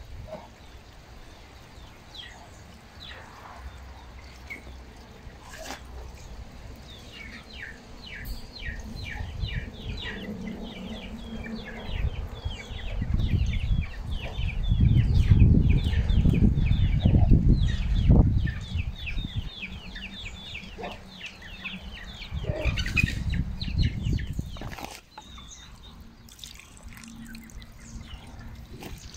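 Chickens clucking in long, quick runs, with two stretches of loud low rumbling in the middle. Near the end, water is poured from a bucket onto dry cement mix around the foot of a wooden post.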